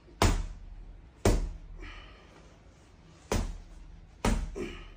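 Four heavy, dull thuds about one to two seconds apart: a hard-swung, iron-weighted ball-headed hammer landing on a person's body.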